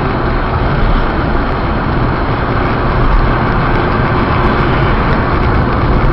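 Steady road noise inside a car driving on a slushy, snow-covered highway: tyre rumble and engine, as a dashcam inside the cabin picks it up.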